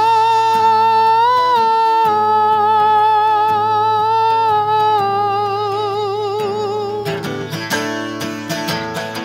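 A man sings one long, high held note over acoustic guitar chords. The note wavers with vibrato near its end and stops about seven seconds in, after which the acoustic guitar strums on alone.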